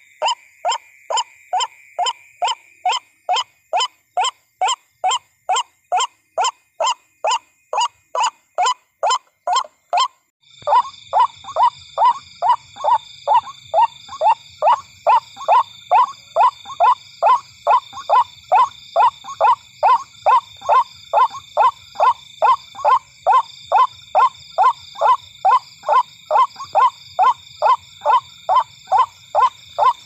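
White-breasted waterhen calling: a long, even run of short notes, about three a second, each dropping a little in pitch. About ten seconds in, the recording changes, and a steady high-pitched background and a low hum join behind the calls.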